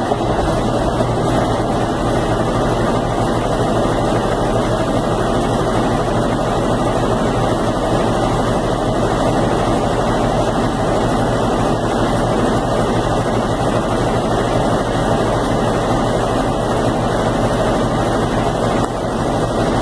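Consul Facilite 10 kg washing machine spinning, with a steady, loud whirring drone that is likened to a helicopter: an abnormal noise during the spin cycle whose cause is not yet found.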